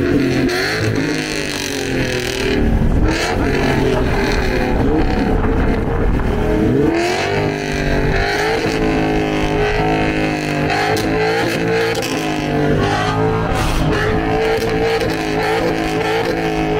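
A drift car's engine revving hard, its pitch rising and falling again and again, with tyres squealing.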